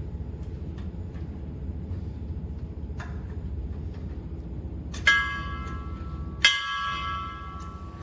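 Two sharp metal-on-metal strikes about a second and a half apart, each leaving a bell-like ringing, as steel parts are knocked during disassembly of a slitting machine's unwinder. A steady low hum runs underneath.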